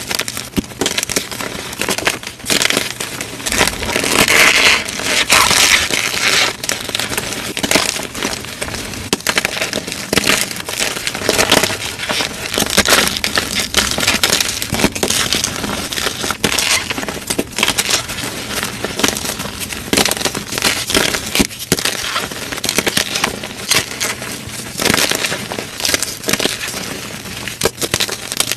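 Gym chalk being crushed, a dense run of crunching and crackling, with louder crunches about four to six seconds in.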